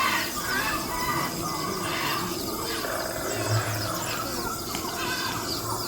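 Museum exhibit soundtrack: many short bird-like chirps and calls over ambient music.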